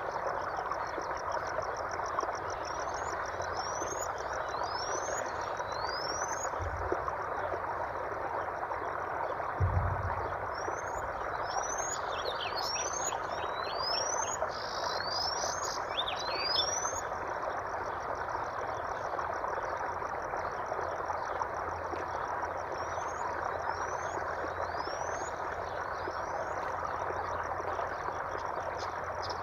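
Steady running water with birds giving short rising whistled calls, several in quick succession, over a fast, high, even trill of frogs or insects. A couple of brief low thuds come through, the stronger about ten seconds in.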